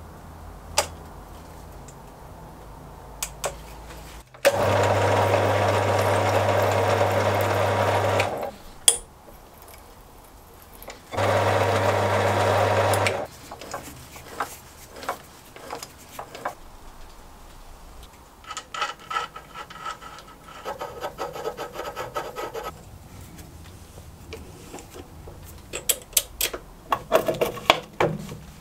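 Halifax 524 metal lathe running under its electric motor in two bursts, about four seconds and then about two seconds, each starting and stopping abruptly with a steady hum. Later a fainter whine for a few seconds, then scattered clicks and knocks of handling.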